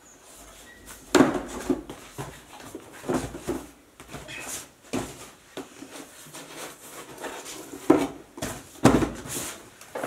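Cardboard product boxes being handled and set down: a run of irregular knocks, taps and scrapes, the sharpest about a second in and twice near the end.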